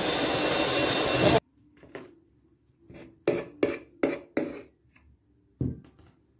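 Electric hand mixer with twin beaters running with a steady whine in cake batter, switched off about one and a half seconds in. It is followed by a string of short knocks and clinks of the beaters against the metal mixing bowl.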